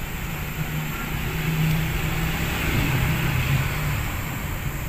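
Double-headed 12-volt vehicle fan running on its higher of two speeds: a steady whir of rushing air over a steady low hum.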